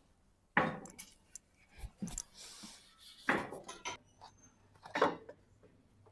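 Metal objects clinking and clanking against each other in four separate strikes, spaced a second or so apart, each ringing briefly.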